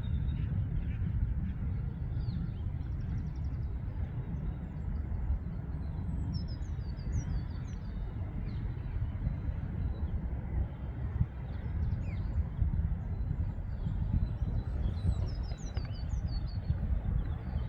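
Outdoor park ambience: a steady low rumble throughout, with small birds chirping in quick runs of short high notes about six seconds in and again near the end.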